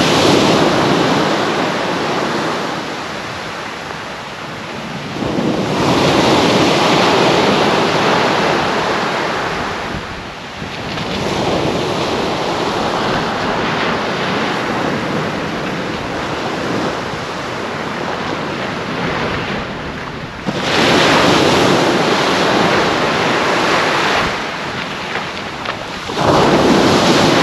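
Waves breaking and washing up a sand-and-shingle beach in surges that swell and ease every few seconds.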